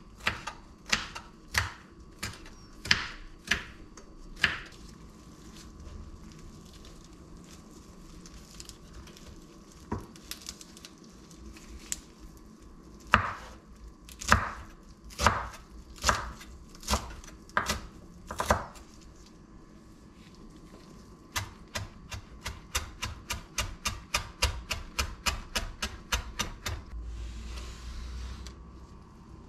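Chef's knife chopping green peppers and parsley on a wooden cutting board, each stroke a sharp knock of the blade on the wood. The strokes come slowly at first, pause, return as louder single chops, then speed up to about three or four a second near the end.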